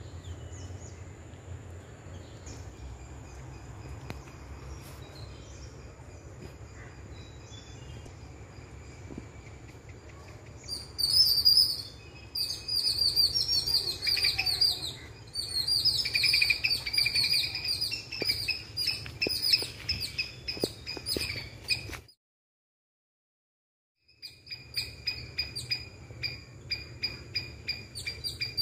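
A squirrel's rapid, high-pitched chipping alarm call, starting about eleven seconds in as dense runs of chips, breaking off for two seconds of dead silence, then going on as a steady series of about four to five chips a second. Before the calling, a faint steady high insect whine and a low rumble of wind.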